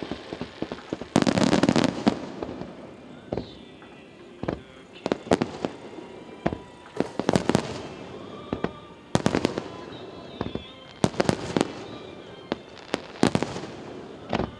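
Fireworks display: aerial shells and low bursts at the water's surface going off as sharp bangs and reports. A dense volley about a second in, then clusters of bangs every two seconds or so.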